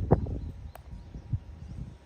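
Cats fighting: a flurry of scuffling thuds and rustling, loudest just after it begins and dying down toward the end.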